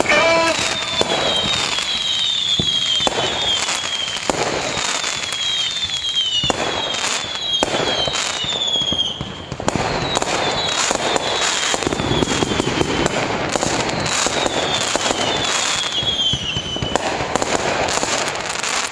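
Fireworks display: a continuous run of bangs and crackling, with many short whistles falling in pitch.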